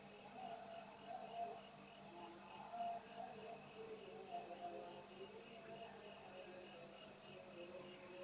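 Night-time chorus of crickets: steady high trilling, with four short, louder chirps in quick succession near the end.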